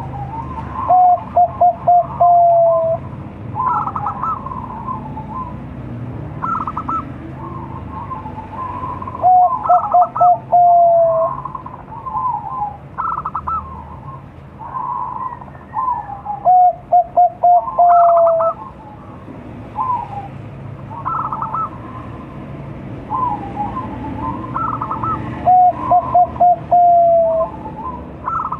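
Zebra dove (perkutut) of Bangkok breed, five months old, singing its cooing song. Four times, a loud phrase of about four quick stuttered notes ends in a longer drawn-out note, with softer cooing notes between.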